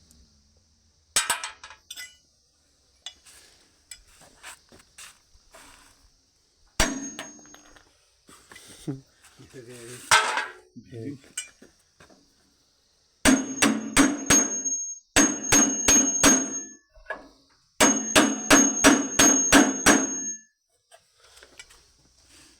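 Hammer striking the metal parts of a chaff cutter: a few scattered knocks, then three quick runs of blows in the second half, about three or four strikes a second, each with a short metallic ring.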